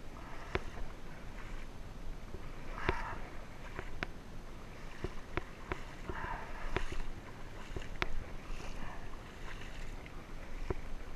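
Hand splashing and scooping at shallow water beside a kayak to pull it over a muddy creek flat, with short splashes a few times and scattered sharp clicks.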